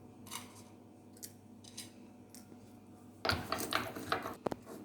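Whole peppercorns, cardamom pods and cloves being crushed to powder: a few faint clicks, then from about three seconds in a loud run of irregular crunching and clattering.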